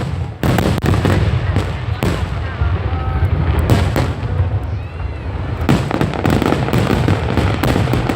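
Fireworks going off in a continuous barrage of bangs and crackling, denser in the second half.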